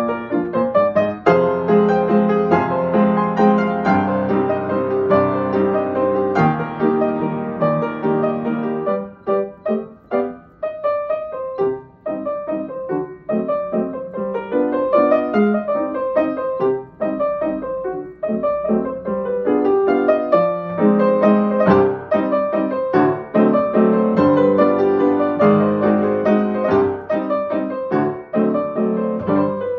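Upright piano played solo, a mazurka. Full, sustained chords give way about nine seconds in to quieter, sparser notes, and the playing builds back to full chords from about twenty seconds in.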